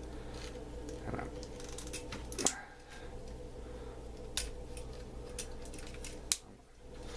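Plastic parts of a Transformers Hailstorm action figure being handled and moved during transformation, giving scattered sharp clicks and small knocks over a steady low hum.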